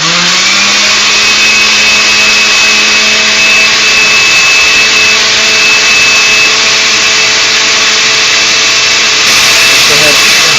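Countertop blender with a plastic jar running at high speed, blending hot milk and gelatin. The motor spins up at the start, holds a loud steady whine, and cuts off at the end.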